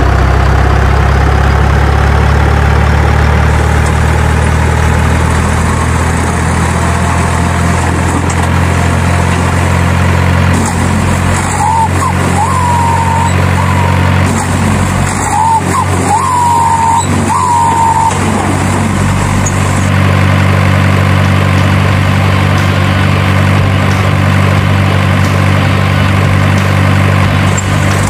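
Heavy truck engine sound effect, dubbed onto a toy dump truck, running steadily at a low, even drone. About halfway through come a handful of short, high squeals.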